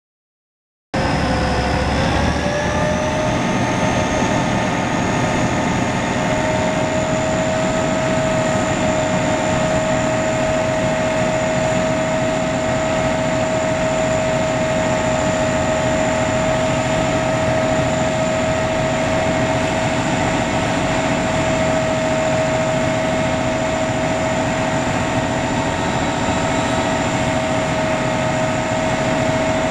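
Service truck's engine running with its PTO-driven hydraulic pump whining steadily as the Liftmoore hydraulic crane is worked. The sound starts abruptly about a second in, and the whine rises a little in pitch over the next two seconds, then holds.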